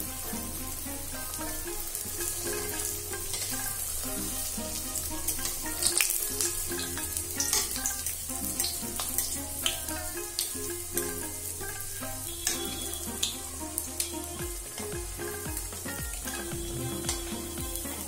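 A stuffed pastry deep-frying in mustard oil in an iron kadhai: steady sizzling, with a metal spatula clicking and scraping against the pan a few times through the middle as the pastry is turned.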